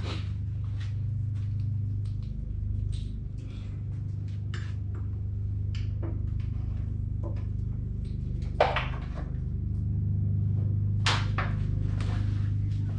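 Scattered clicks and knocks of hands working on car parts, with a sharp knock about eight and a half seconds in and another about eleven seconds in, over a steady low hum.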